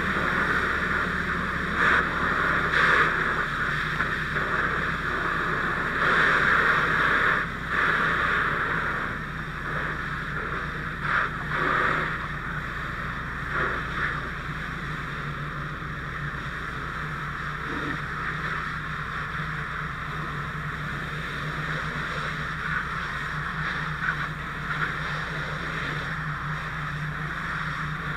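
Fire hose nozzle spraying a water stream onto a burning car's engine compartment: a steady loud hiss of water and steam. It surges several times in the first dozen seconds, then settles to an even rush over a low steady hum.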